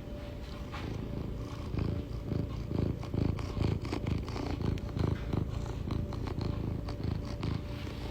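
Domestic cat purring close to the microphone, a low pulsing rumble that grows louder about two seconds in and keeps an even rhythm.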